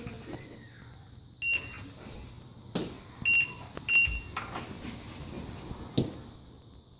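A few short, high-pitched beeps, each a single steady tone, among scattered knocks and clicks over a low steady hum.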